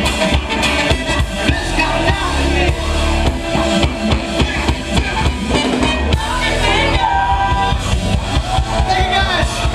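Funk band playing live, drum kit, guitar and singing together, heard from the crowd on the club floor; held sung notes in the last few seconds.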